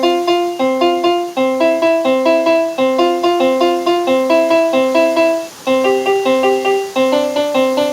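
A child playing a simple tune of his own on a keyboard: evenly timed single notes and two-note chords in a repeating pattern, with a short break about five and a half seconds in.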